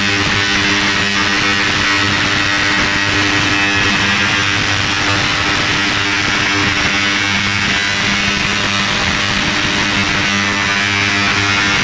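A 360 W, 40 kHz ultrasonic cleaner running with its stainless steel bath full of water: a steady, loud electric buzz with a hiss from the bath over it.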